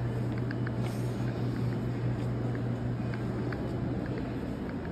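Background noise of a large store: a steady low hum under an even wash of noise, with scattered faint light clicks.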